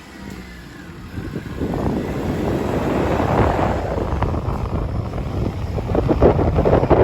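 Rainstorm wind gusting and buffeting the microphone, swelling loud about a second and a half in and staying strong.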